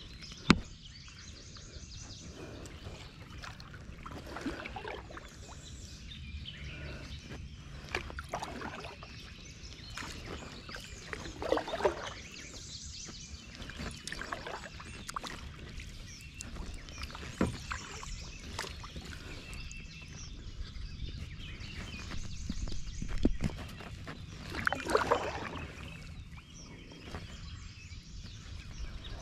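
Kayak paddling: a double-bladed paddle dipping and splashing in calm water at irregular intervals, with a few sharp knocks.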